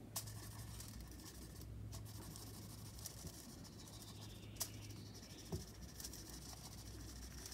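Permanent marker drawn across aluminium foil: faint, scratchy strokes with a few sharp ticks, over a steady low hum.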